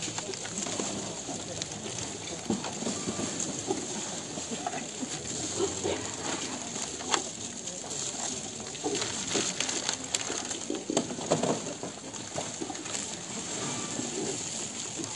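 Crowd ambience: a low murmur of many people, with a few light clicks and knocks and birds calling.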